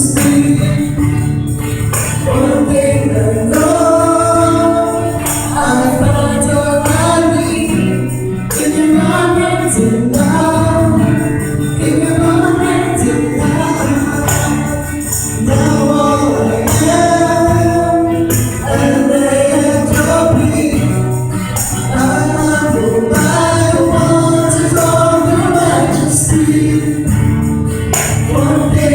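Live gospel worship music: voices singing a melody together over a full band accompaniment.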